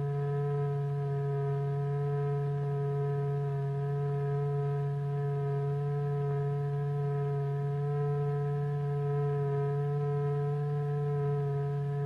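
A steady, unchanging low electronic tone with fainter steady higher tones above it: the kind of tone used to vibrate the medium in a cymatics experiment.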